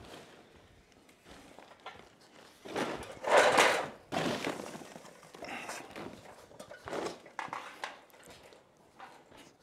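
Footsteps and knocks as a person climbs an aluminium ladder, in irregular noisy bursts. The loudest burst comes about three to four seconds in.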